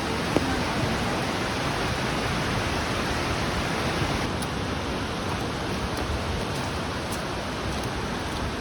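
Waterfall at Gordale Scar: a steady, unbroken rush of falling water, with a faint click or two.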